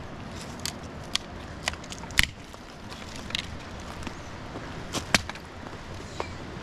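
A handful of irregular sharp cracks and knocks, the loudest about two seconds in and another pair near five seconds, over a steady low outdoor background.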